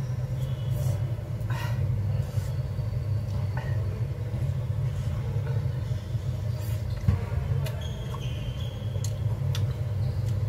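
A steady low hum throughout, with faint eating sounds over it: chewing and scattered clicks of chopsticks on a bowl of spicy instant noodles.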